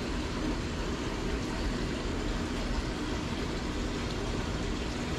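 Steady background noise, an even hiss with a low rumble underneath, holding level throughout.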